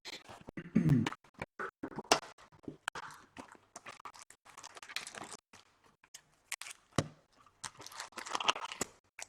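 Trading card packs and cards being handled: crinkling foil wrappers and sharp clicks and snaps of cards, in irregular bursts.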